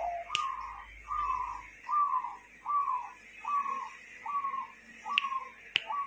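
Zebra dove (perkutut) cooing: a steady series of about eight short coos, each dropping slightly at the end, a little under a second apart. A few sharp clicks come in among them, most near the end.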